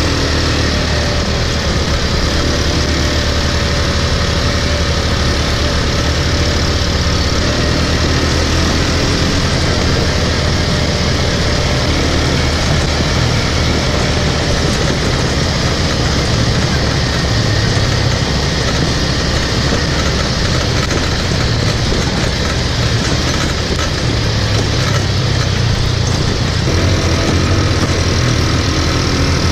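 ATV engine running steadily under the rider as it travels along a gravel dirt track, heard from on board, with an even rushing noise over it.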